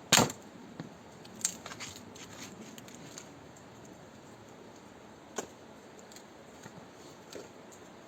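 A sharp knock right at the start, then scattered light clicks and taps, the clearest about a second and a half in and again past the five-second mark.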